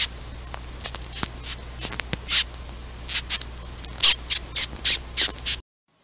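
A bess beetle (horned passalus) held in the fingers stridulating: a rapid, irregular series of short rasping squeaks, made by rubbing its hind wings against a rasp-like ridge on its back. The squeaks grow louder and come faster in the second half, over a low steady hum. This is the bess beetle's characteristic squeaking or kissing disturbance call when picked up.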